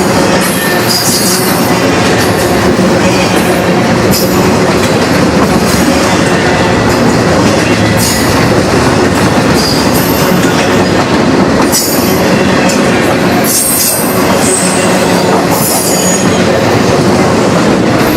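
Freight train cars rolling past close by: a loud, steady rumble of steel wheels on rail, broken every second or two by short, high-pitched wheel squeals.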